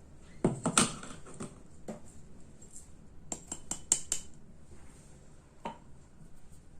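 Kitchen utensils clinking and knocking against a bowl and dishes: a few short sharp strikes in two clusters, then one more near the end.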